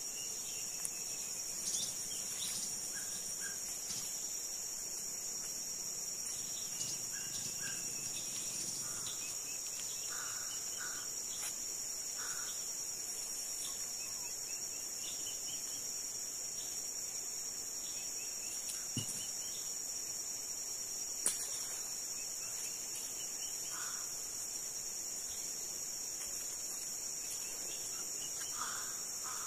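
Steady, high-pitched drone of an insect chorus, with a few short faint chirps now and then.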